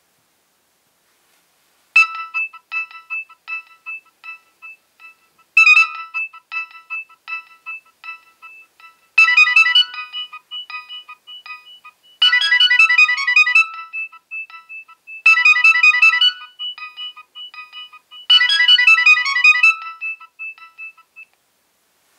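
A Nokia 6820a mobile phone playing one of its built-in polyphonic ringtones. A synthesized melody starts about two seconds in and comes in repeated short phrases, each followed by echoing notes that fade away, before stopping near the end.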